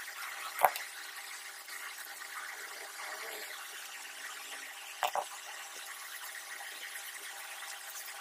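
Small hand-repair clicks from a precision screwdriver and the plastic housing of an SJCAM J8 Pro action camera being taken apart: one sharp click about half a second in and a quick double click about five seconds in, over a steady hiss.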